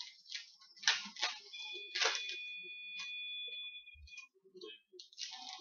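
Crinkling and rustling of trading-card packs and wrappers being opened and handled, in short irregular crackles. A steady high two-note electronic tone sounds for about two and a half seconds, starting about a second and a half in.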